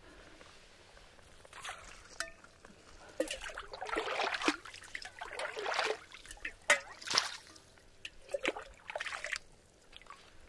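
A small metal cup dipped into shallow lake water and scooped, sloshing and splashing. The water noise starts about three seconds in and runs in bursts for about four seconds, with a few smaller splashes near the end.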